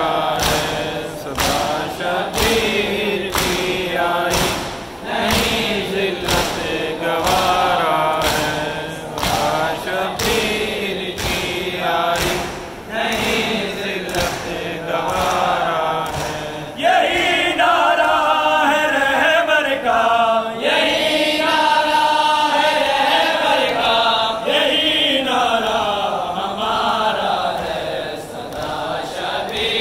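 Mourners chanting a noha lament together, with a steady beat of chest-beating (matam) thuds. The beating stops a little past halfway while the chanting carries on.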